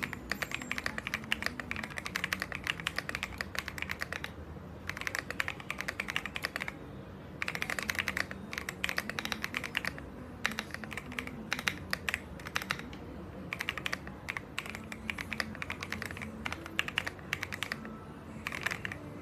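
Fast typing on a mechanical keyboard, with runs of rapid key clicks broken by a few short pauses.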